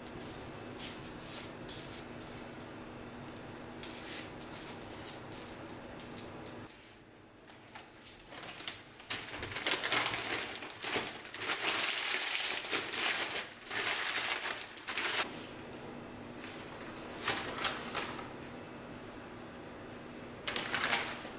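Kitchen cooking sounds: a steady low hum at first, then, about nine seconds in, several seconds of crisp, close rustling and knocking as fresh dill and parsley are handled on a cutting board. The hum comes back with a few short clicks.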